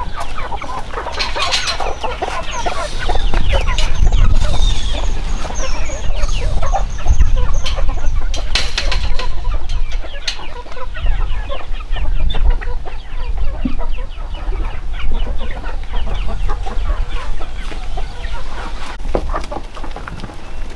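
A flock of chickens clucking and calling, many birds at once, the short calls overlapping without pause.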